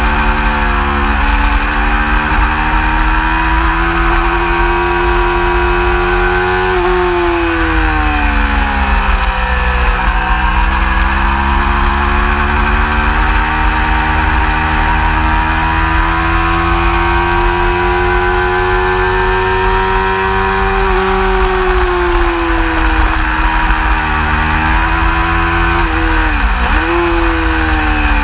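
Racing motorcycle engine at speed, heard from an onboard camera: its note climbs slowly under throttle and falls away on braking, with a sharp drop about seven seconds in and another near the end. Heavy wind rumble on the microphone.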